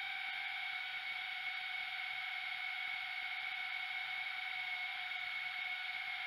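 Tarantula X6 drone's motors and propellers whining steadily in flight, heard up close from its onboard camera, with two steady pitches over a hiss.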